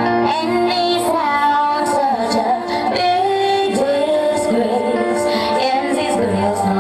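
A recorded song with a sung vocal and a beat, played loud over a reggae sound system.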